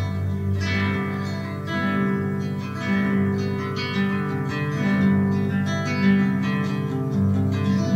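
Acoustic guitar music, chords strummed with a fresh attack roughly once a second and left to ring.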